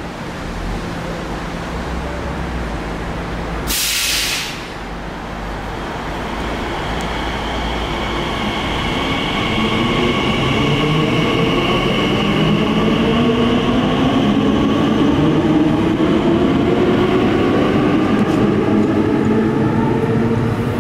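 Class 345 electric train pulling away from the platform, its traction motors giving a whine that rises in pitch as it gathers speed and grows louder. A short hiss comes about four seconds in.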